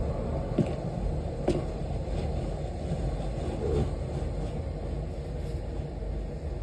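A low, steady rumbling drone, with a few faint knocks in the first two seconds.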